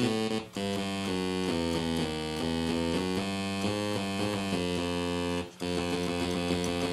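Sequential Circuits Prophet-5 analog synthesizer playing a string of short notes as two neighbouring keys are played in turn, with two brief breaks. Some notes come out at the wrong pitch: the intermittent fault in which neighbouring keys can sound the same note.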